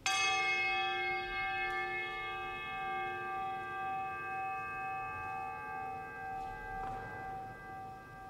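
A bell struck once, its many overtones ringing on and fading slowly with a pulsing waver; a second, softer strike comes about seven seconds in.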